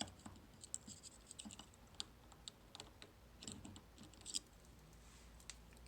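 Faint, scattered small metallic clicks and ticks from a just-picked Mul-T-Lock Interactive cam lock and its pick and tensioner as the lock is handled and turned. There is a sharper click right at the start and a cluster of clicks around three and a half to four and a half seconds in.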